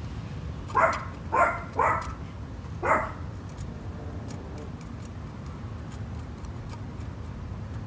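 A dog barks four times in about the first three seconds, in short separate barks. After that only a low steady background hum remains.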